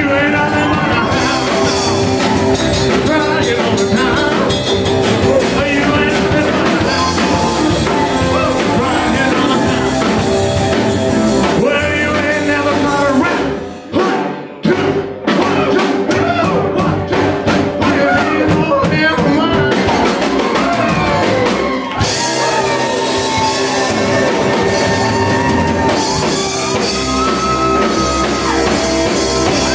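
Live rock and roll band playing, with drum kit, keyboard and a male singer on vocals. The band cuts out briefly twice about halfway through, then comes back in.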